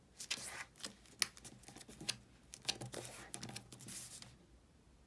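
A sheet of single-sided origami paper being folded and creased by hand: soft rustling with scattered sharp little clicks as the fold is pressed flat.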